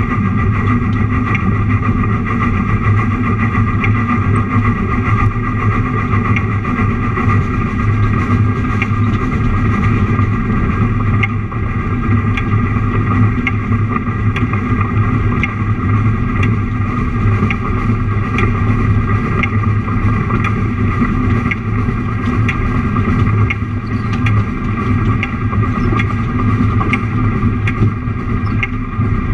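Train engine running steadily on narrow-gauge track, a loud even drone, with light regular clicks of the wheels over the rail joints.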